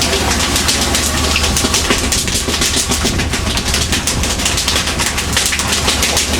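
Fishing boat's engine running steadily with a continuous low drone, under a dense, irregular clatter and rattling.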